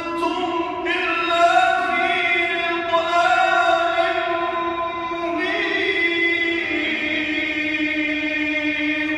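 A man reciting the Quran in the melodic tajwid style: one voice holding long, drawn-out, ornamented notes that shift pitch slowly. The phrase fades away at the very end.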